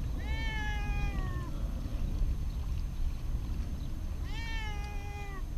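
Domestic cat meowing twice, two long drawn-out meows of about a second each, a few seconds apart.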